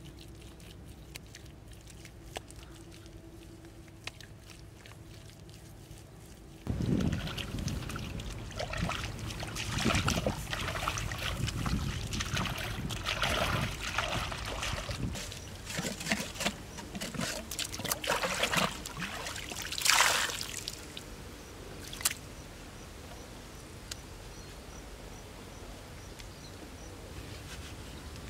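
Hands scooping wet mud and water at a river's edge: irregular splashing and sloshing with wet squelches, the loudest splash about two-thirds of the way through. The start and the last few seconds are quieter, with only soft handling of mud.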